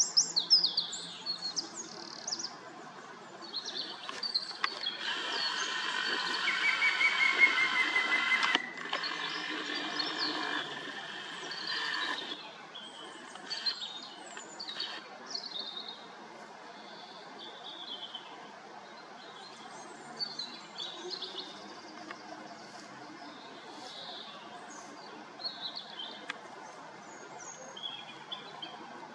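Woodland birdsong: scattered short, high chirps and calls from several small birds. About five seconds in, a louder rushing sound with a faint, slightly falling whistle rises, then drops away around twelve seconds in.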